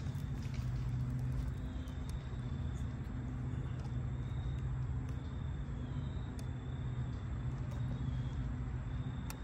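Steady low hum of a portable power station's cooling fan running while it powers an electric grill, with a few light clicks of utensils.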